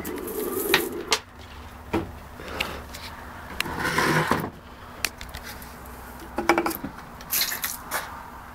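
Liquid pouring from a plastic bottle into a pail for about the first second, then scattered knocks and clatter of things being handled.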